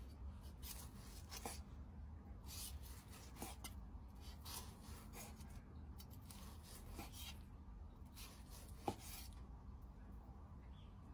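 Chef's knife sawing through seared beef on a wooden cutting board: about five quiet rasping slicing strokes, several ending in a light tap of the blade on the board, the sharpest tap about nine seconds in.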